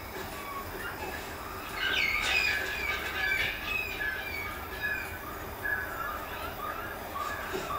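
Squawking animal calls from a jungle scene playing on a television. A run of short, high squeals and chirps starts about two seconds in.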